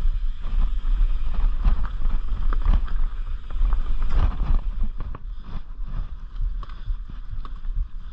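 Mountain bike riding a rough dirt and rock trail: wind buffeting the camera microphone under a rapid patter of clicks and knocks as the bike rattles over bumps. The rattling is densest over the rocky stretch and thins out about five seconds in, on smoother dirt.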